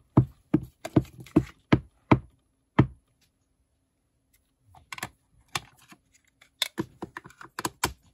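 Red Archival Ink pad tapped repeatedly against a clear-mounted rubber stamp to ink it: a quick, even run of sharp plastic taps, about two or three a second, that stops about three seconds in. Lighter, irregular clicks and taps follow near the end.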